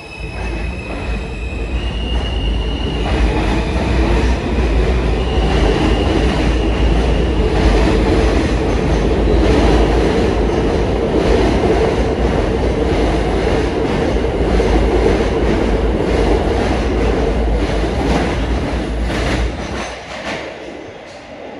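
New York City Transit R160 subway train pulling out of the station: its propulsion whine steps up in pitch over the first few seconds as it accelerates, then the cars rumble and clatter past with some wheel squeal before the sound fades near the end as the train leaves.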